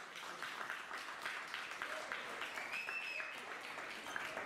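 Spectators clapping to acclaim a goal just scored, with a high voice calling out about three seconds in.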